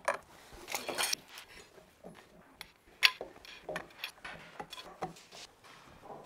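Irregular light clinks and knocks as black aluminum balusters are handled and set against the wooden railing.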